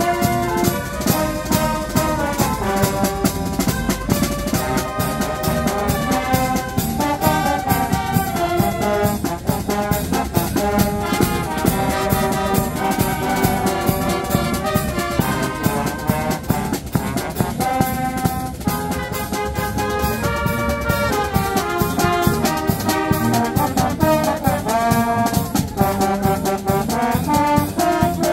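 Dweilorkest, a Dutch carnival brass band, playing: trumpets and trombones carry a melody over a steady drum beat.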